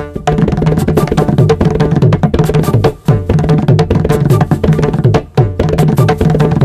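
Background music driven by fast drum strokes, with a low note sliding down in pitch about twice a second.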